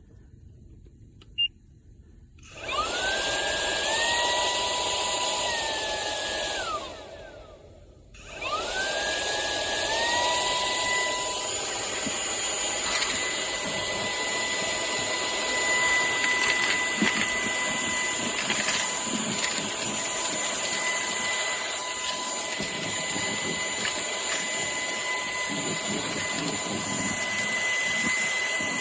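Cordless handheld vacuum switched on with a click, its motor climbing in two steps to a steady high whine with a rush of air, then shutting off a few seconds later. It starts again about eight seconds in, climbs the same way and keeps running steadily.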